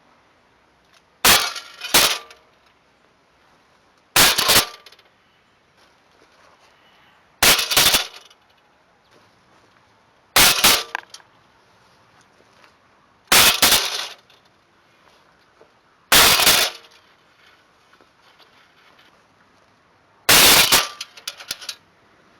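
STI Duty One CO2 blowback airsoft pistol firing eight single shots: two about a second in, then one roughly every three seconds. Each shot is a sharp crack with the slide cycling and the hit on the target following close behind. The last shot is followed by a brief rattle of small clicks.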